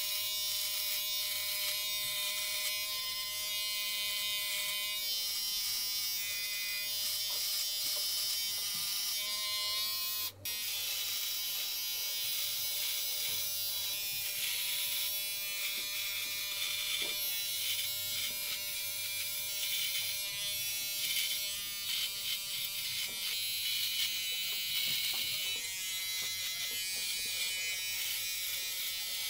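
Remington MB7000 cordless beard trimmer buzzing steadily as its T-blade cuts stubble, with a brief break about ten seconds in.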